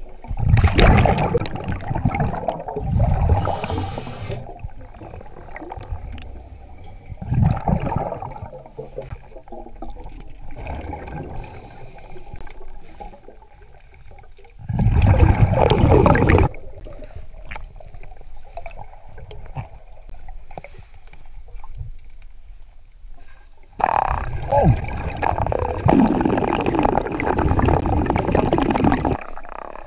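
Scuba regulator breathing heard underwater: five irregular bursts of exhaled bubbles rushing past the microphone, the last one long, with quieter water noise between.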